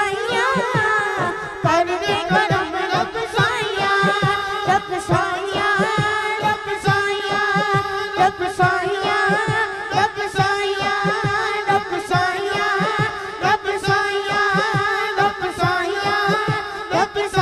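A boy singing a Punjabi naat through a microphone and PA, his voice wavering with heavy vibrato over a held drone note and a low rhythmic beat of about three pulses a second.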